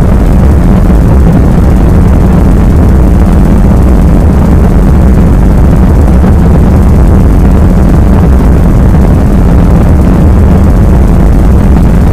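Gorenoise, a harsh noise style: a dense, distorted wall of noise, steady and very loud, heaviest in the bass with a constant low drone underneath.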